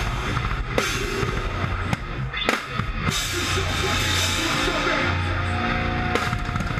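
Live rock band with the drum kit loudest: a fast run of bass-drum strokes, crash cymbals struck several times in the first half, and held notes from the band over the second half.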